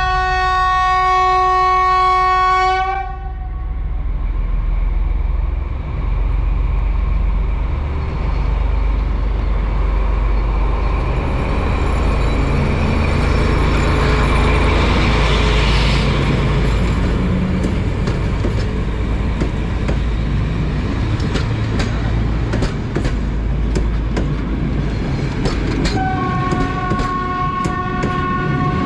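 SU45 diesel locomotive sounding its horn for about three seconds, then the train running with steady engine and wheel noise and the wheels clicking over rail joints, and a second horn blast near the end.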